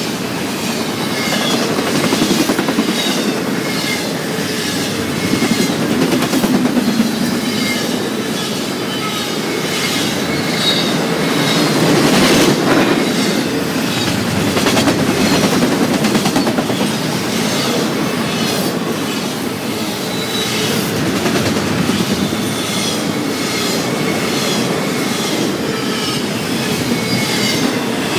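Loaded double-stack container well cars rolling past close by: a steady rumble of steel wheels on rail, with a regular clickety-clack as the wheel trucks cross rail joints and short, high-pitched wheel squeals.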